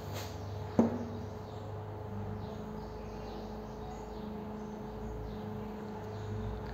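Quiet classroom room tone: a steady electrical hum with a single sharp click about a second in, and faint high chirps in the background.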